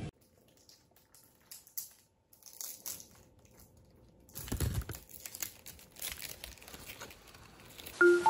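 Plastic and paper flower wrapping crinkling and rustling in short, scattered spells as bouquets are handled, with a dull low thump about four and a half seconds in.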